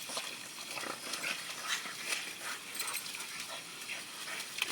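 Dogs at play, making a string of short, irregular noises with no barking.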